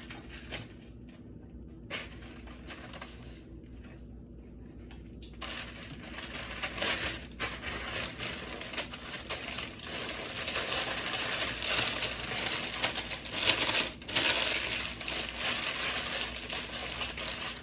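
Parchment paper crinkling and rustling as sandwiches are wrapped in it, faint at first, then louder and busier from about six seconds in.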